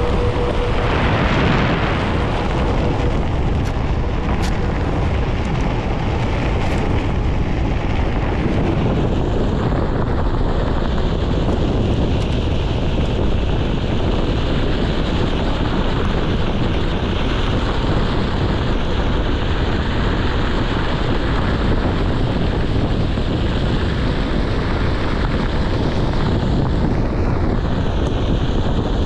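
Steady wind buffeting on the microphone and the rolling rumble of a Onewheel GT-S electric board's tyre on a packed dirt path.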